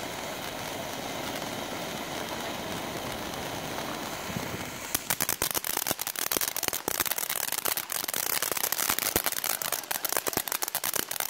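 Consumer ground fountain firework hissing as it sprays sparks, then from about five seconds in switching to a dense, rapid crackling of many small pops.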